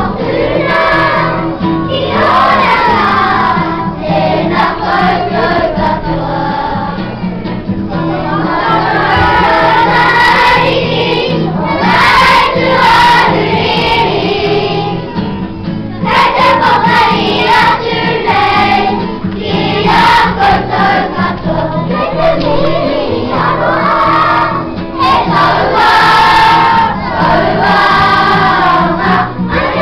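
A large group of young children singing a Māori kapa haka song together, phrase after phrase with short breaks between.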